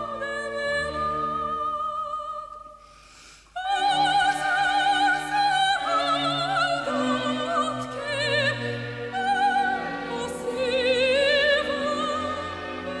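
Operatic soprano singing an operetta aria with wide vibrato over instrumental accompaniment. The sound drops briefly about three seconds in, then a loud, high sung phrase enters.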